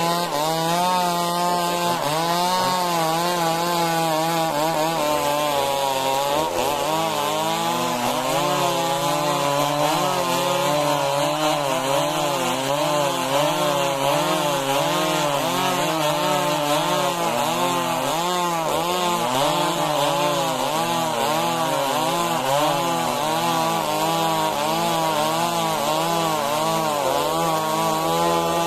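Stihl MS 382 two-stroke chainsaw running at high revs while ripping lengthwise through a log of majau timber, the engine note wavering up and down continuously as the chain bites and eases in the cut.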